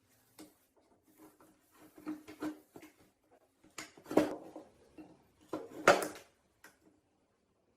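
Metal parts being handled and set down: a series of separate knocks and clinks, with two louder clatters about four and six seconds in.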